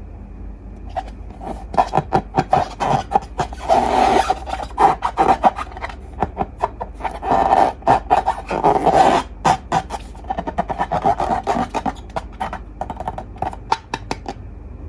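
Slime being worked by hand: a run of sticky clicks and crackling pops, with two longer squelching bursts about four and eight seconds in.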